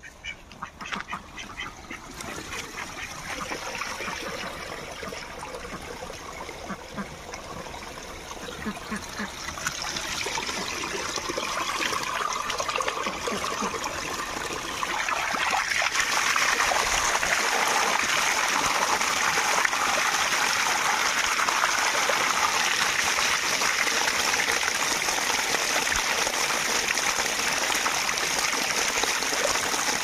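Ducks quacking in quick runs of calls. About halfway through, a steady rush of running water grows up and drowns them out.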